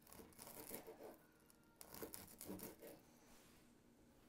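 Knife sawing through smoked hot links on a cutting board: faint scraping and tapping in two spells, one in the first second and another about two seconds in.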